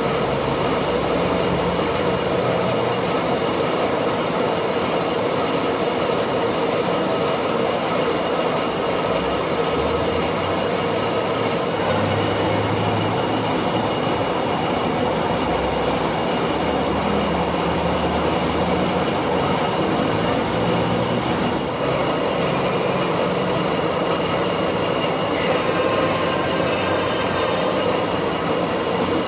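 Metal lathe running, a steady mechanical whir with a few held whining tones and no breaks.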